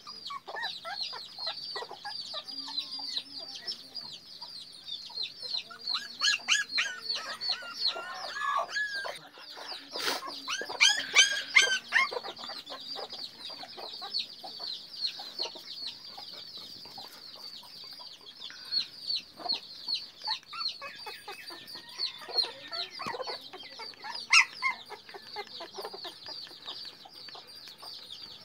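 Young Labrador puppies squeaking and whining in a constant stream of quick, high-pitched cries, with a few louder yelps in the first half.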